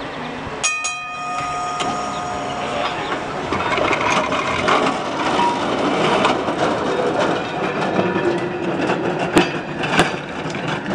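Electric streetcar 832 rolling past on steel rails, its wheels rumbling and clicking over the track, with two sharp clacks near the end. About a second in, the car's gong is struck once and rings out for about two seconds.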